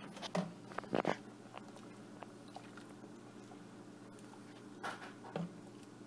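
A spoon knocking and scraping against a metal stew pot during stirring: a few sharp knocks about a second in and again near the end, over a steady low hum.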